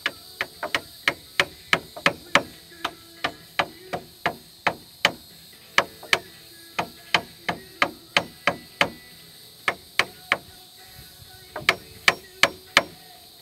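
A hammer tapping wooden shims in between a wooden pier post and a floor joist, driving them tight. It is a quick series of light blows, about three a second, with a short pause about ten seconds in.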